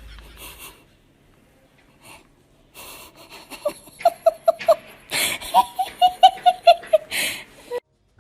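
A person laughing in quick, breathy, wheezy bursts, about four or five a second, cutting off abruptly near the end.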